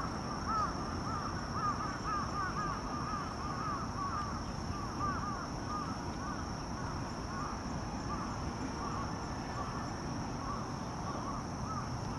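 Birds calling: many short, arched chirps, several a second and overlapping, thinning out near the end, over a low outdoor rumble and a faint, steady high-pitched tone.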